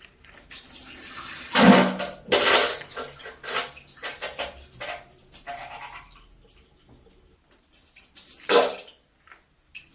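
Diarrhea sound effect: an irregular string of wet splattering and squirting bursts, the loudest about a second and a half in and again near the end, with a short rising squeak around the middle.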